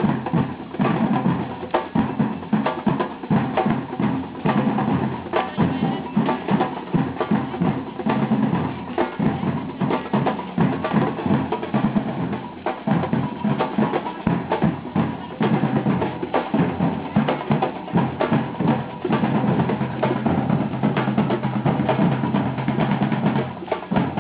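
Percussion music: drums played in a dense, steady beat with bass drum, throughout.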